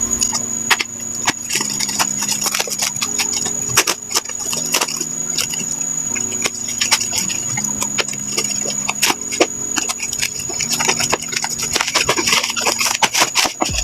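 Plastic packaging being handled and unwrapped: a dense run of quick clicks and crackles.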